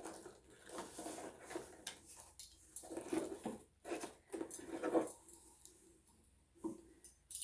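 Hands handling small metal enamel pins and their packaging: irregular rustling and light clicks, with a sharp click at the start and another near the end.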